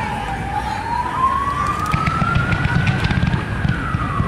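A siren wailing in a slow sweep. Its pitch falls, climbs steadily for about three seconds, then starts to fall again near the end. Underneath is a low rumble with scattered crackles from the fireworks display.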